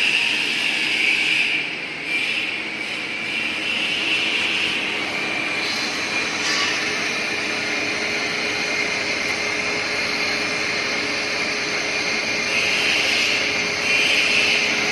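Small CNC lathe running: a steady machine whirr with a high hiss, and a thin steady tone joining it about six seconds in.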